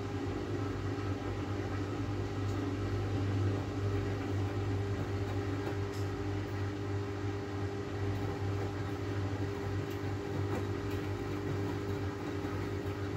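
Miele W433 washing machine's drain pump running with a steady hum as it pumps out the last rinse water, the step just before the final spin.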